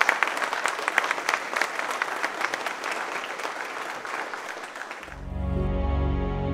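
Audience applauding, many hands clapping together. About five seconds in the applause cuts off abruptly and instrumental music with sustained low tones takes over.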